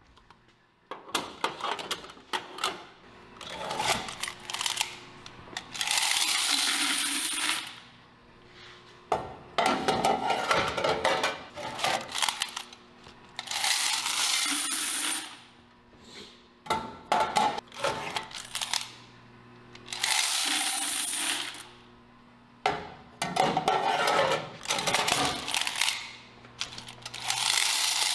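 Quarters poured from a metal washer coin box into a plastic bucket, again and again: each pour is a rush of jingling coins lasting a second or two, with sharp clicks between pours, over a low steady hum.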